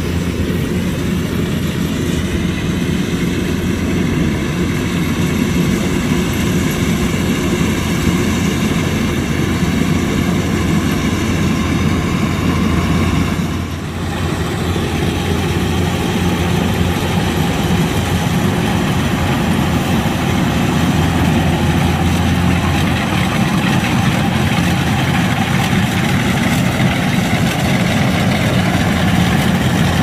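Kubota combine harvester's diesel engine running steadily while harvesting rice, with a brief dip in level about halfway through.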